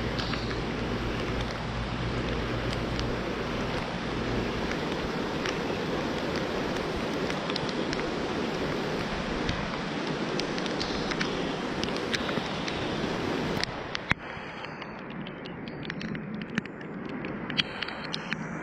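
Steady rush of wind and rain during a tornado-warning storm, with a low wind rumble in the first few seconds. About fourteen seconds in the noise drops off suddenly, leaving a softer hiss with scattered ticks like drops striking.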